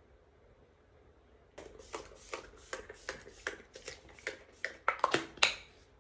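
A quick run of sharp clicks and taps from small hard objects being handled, about two or three a second, starting about a second and a half in and growing louder toward the end.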